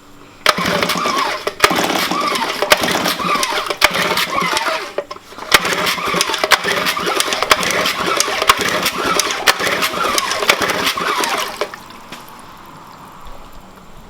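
Old 3 HP Sea-Bee outboard motor being cranked in two long start attempts, each several seconds, with sharp clicks running through them. The engine does not catch and stops about twelve seconds in. The owner later suspects fuel is not getting through, from a clogged carburetor.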